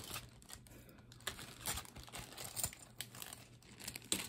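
Crinkling and rustling of packing material being handled, with a few sharp crackles along the way.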